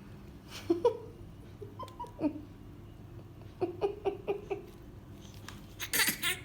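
A toddler's voice: short babbling sounds, then a quick run of about five giggling syllables. About six seconds in comes a short, breathy fake sneeze.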